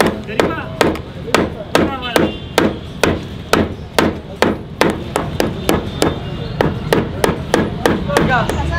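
Sharp, even knocks, about two a second, as a beef bone is struck over and over with a knife to beat the marrow out of it onto a metal pulao tray.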